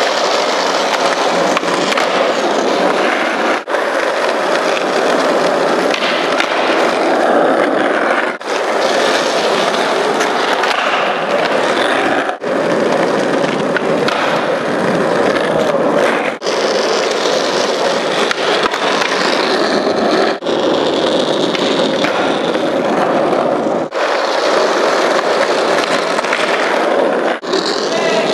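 Skateboard wheels rolling over smooth paved ground in a continuous rumble, broken by brief drop-outs about every four seconds.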